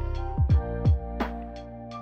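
Background music with a steady beat: deep kick drums that drop in pitch, sharp percussive hits and sustained chords.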